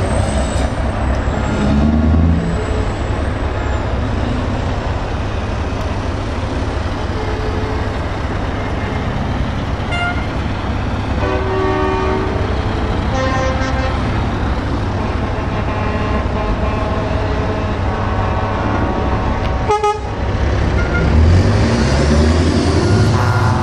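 Diesel engines of heavy trucks running as they pull away, with several horn blasts sounding at intervals. Near the end a truck engine revs up, rising in pitch as it accelerates.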